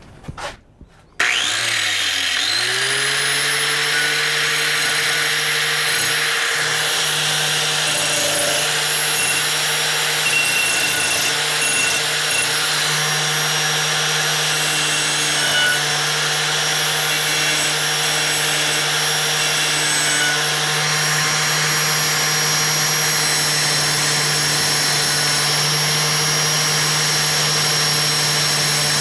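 Angle grinder with a grinding disc switched on about a second in, its motor whine rising as it spins up, then grinding the steel of a circular saw blade clamped in a vise: a steady whine over the noisy rasp of the disc on the metal.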